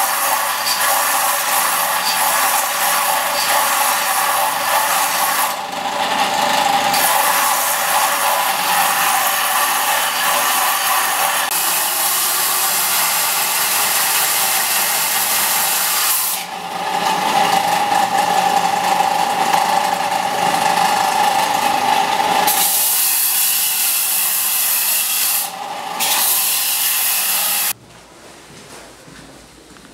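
Bench disc sander running with a damascus steel blade ground against its sanding disc: a steady grinding hiss over the motor's hum, shifting in strength several times. Near the end it cuts off to much quieter room sound.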